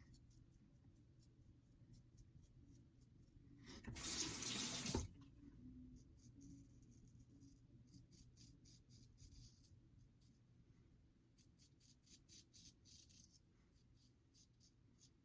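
A bathroom sink tap runs briefly, for about a second, about four seconds in. Before it, and more often afterwards, come faint short scratchy strokes of a GEM Pushbutton single-edge safety razor cutting stubble.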